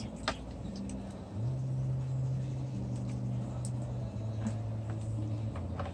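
Low steady hum of a motor or engine running, rising about a second and a half in and stepping down in pitch twice later on. A few light clicks of a plastic cup being handled.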